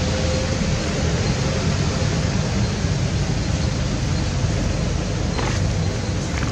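A steady, loud rushing noise with a fluctuating low rumble underneath, unbroken throughout.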